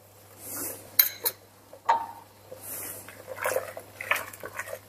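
A spoon clinks against the rim of a pressure cooker as spice powder is tipped in, with a sharp ringing tap about two seconds in. After that, a run of small scraping clicks as the spoon stirs the thick sambar.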